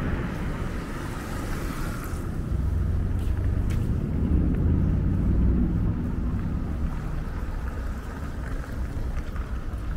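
City street background: a low rumble of traffic mixed with wind on the microphone, swelling about halfway through and easing off again.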